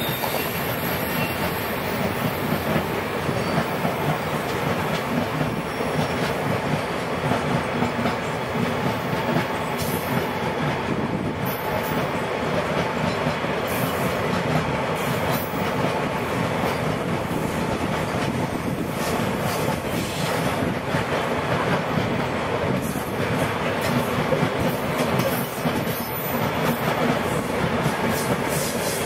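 A freight train's open-top steel wagons rolling past close by: a steady, continuous rumble and clatter of wagon wheels over the rail joints.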